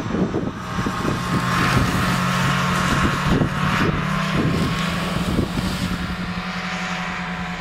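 A machine's steady low hum, shifting up and down in pitch a couple of times, with irregular low rumbles on the microphone.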